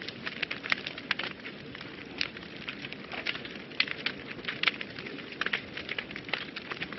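Wood fire burning in a fireplace, with a steady low rush of flame and frequent irregular crackles and pops.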